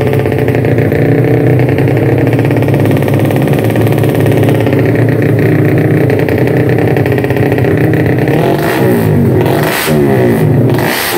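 A race-tuned Honda GTR's single-cylinder four-stroke engine runs on a paddock stand through a Pro Liner aftermarket exhaust. It holds steady revs for about eight seconds, then is revved up and down in quick blips near the end.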